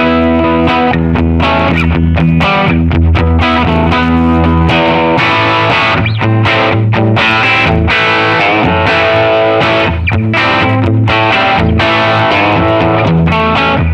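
Electric guitar with Lundgren Heaven 57 humbuckers, a Les Paul played through distortion, playing continuously with brief breaks about six and ten seconds in.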